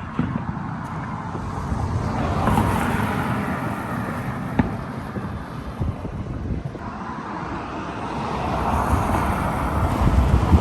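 Road traffic passing on a street, the noise swelling twice as vehicles go by, with a single sharp crack about four and a half seconds in.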